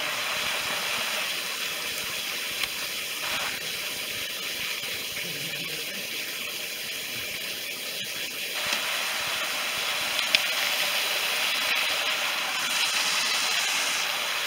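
Small waterfall pouring off a rock ledge and splashing into a shallow pool: a steady hiss of falling water, a little louder about two-thirds of the way through.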